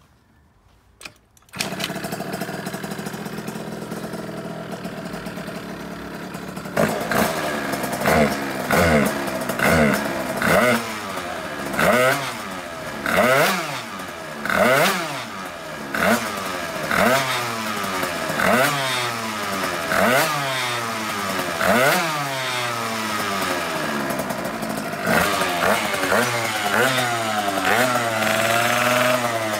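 Beta Ark scooter's Minarelli 70 cc two-stroke engine with a Malossi exhaust starts about a second and a half in and idles for a few seconds. It is then revved on the stand in repeated throttle blips about once a second, each a rising and falling whine, with quicker, shorter blips near the end. It is being run up so the carburation can be judged by ear after the carburettor needle was raised.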